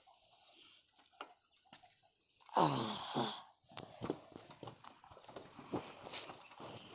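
An animal's cry about two and a half seconds in, falling in pitch and lasting under a second, followed by a run of light clicks and knocks.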